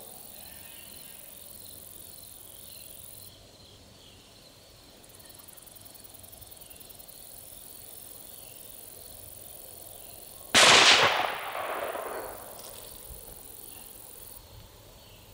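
One distant gunshot about ten seconds in, starting suddenly and trailing off in a rolling echo over a couple of seconds. Faint steady insect chirping goes on underneath.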